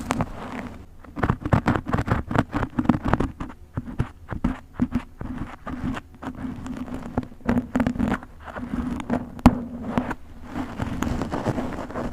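Containers and packaged food being handled and set into a fridge: a dense, irregular run of clicks, knocks and scrapes over a low steady hum.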